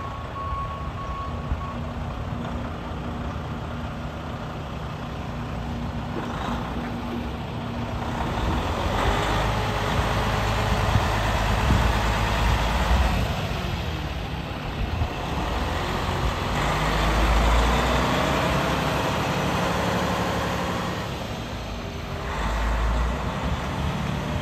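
Freightliner Cascadia 113 semi tractor's diesel engine running as the truck drives across a lot, getting louder as it comes past and fading as it pulls away. A backup alarm beeps for the first second or two.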